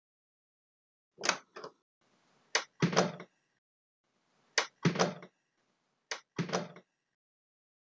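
Interior door sound effects of a virtual walkthrough: four times a sharp latch click, the last three each followed by the heavier thud of the door closing.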